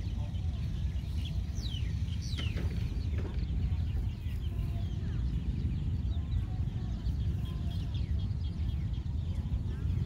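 Chickens clucking in short scattered calls, with a few sharp high falling chirps in the first few seconds, over a steady low rumble.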